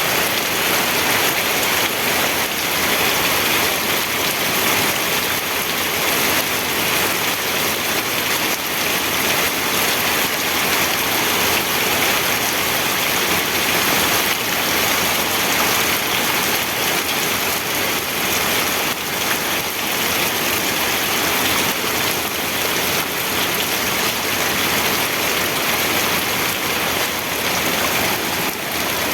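Steady heavy rain falling on a surface, an even continuous hiss of drops with no thunder.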